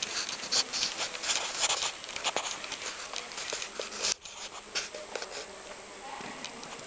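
Horse's hoofbeats on a sand arena surface: irregular thuds, densest in the first four seconds, then dropping away suddenly to fewer, fainter strikes.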